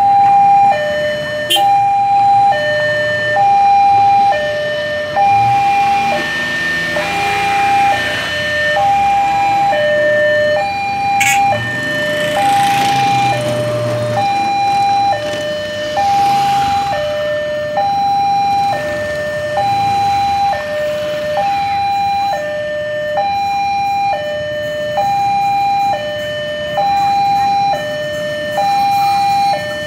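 Railroad level-crossing warning alarm sounding a steady alternating high–low two-tone, one cycle about every second and a half, warning that a train is approaching. A rushing noise swells and fades in the middle.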